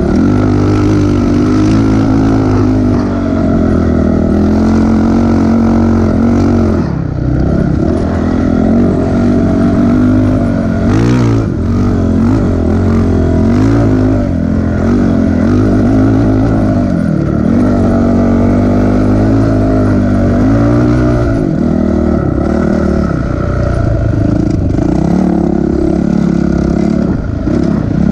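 Dirt bike engine running hard through sand, close to the mic, its revs rising and falling again and again with the throttle.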